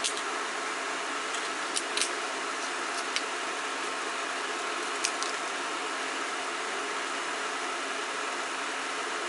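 Steady whirring hum of a countertop induction burner's cooling fan running. A few sharp, light handling clicks come in the first five seconds, two of them close together about two seconds in.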